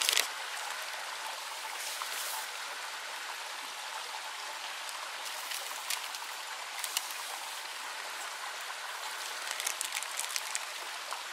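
A steady rushing hiss, with a few light clinks of tableware set down and, about ten seconds in, a brief spatter of liquid poured from a pot into a cup.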